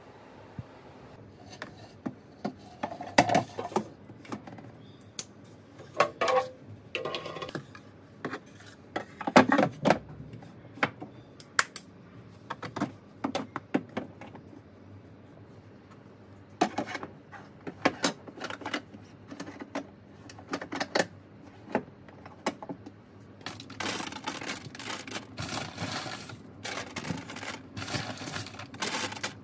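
Small wooden and plastic hamster-cage decorations being handled and set down in an acrylic cage and a ceramic pot: irregular light taps, clicks and knocks. Toward the end it turns into a denser run of rustling and crackly clicks.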